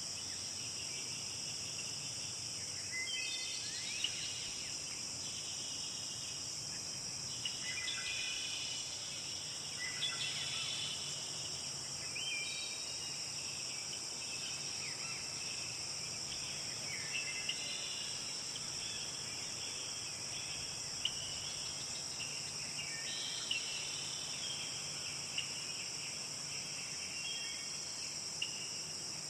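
Forest ambience: a steady high-pitched insect chorus, with birds chirping and calling on and off throughout and a few faint ticks.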